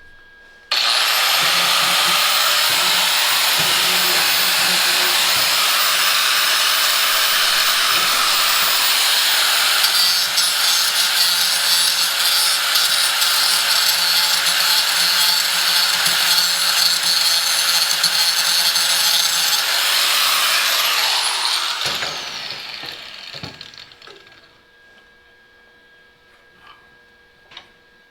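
Electric angle grinder running on steel for about twenty seconds, then released and spinning down with a falling whine.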